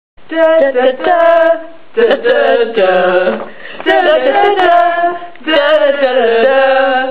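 Female voices singing a short unaccompanied tune in four phrases, with brief pauses between them.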